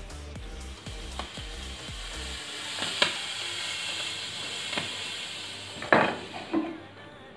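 A handheld Holi colour smoke stick hissing steadily as it burns and pours out green smoke, with a couple of sharp pops, the loudest about six seconds in, and the hiss dying away near the end. Background music with a bass beat stops about two seconds in.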